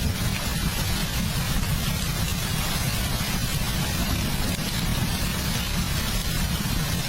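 Steady heavy rain, an even hiss over a constant low rumble.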